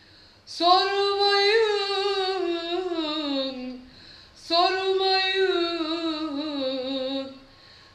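A woman singing unaccompanied in a Turkish arabesk style: two long, drawn-out vowel phrases with ornamented, wavering pitch, each sliding down at its end.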